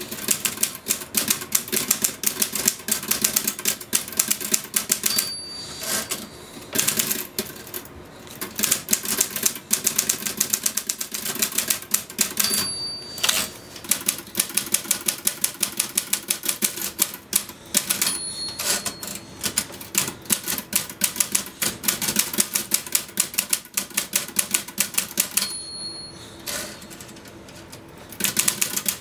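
Typewriter being typed on fast and without let-up, a dense run of key strikes. The line-end bell rings four times, each ring followed by a short break in the typing.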